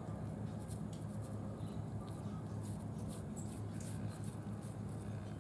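A domestic cat chewing and smacking on food laid on a plastic bag, with many small irregular clicks. A steady low hum sits underneath.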